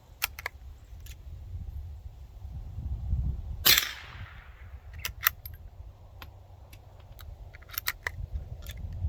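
A .22 LR shot from a Savage Rascal single-shot bolt-action rifle: one sharp crack with a short echo trailing off. A few light clicks come before and after it, with a low rumble underneath.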